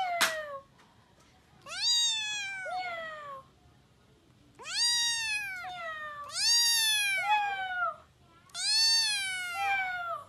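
Grey kitten meowing over and over: four long, high meows about two seconds apart, each rising and then falling away, after the tail end of one more. There is a sharp click near the start.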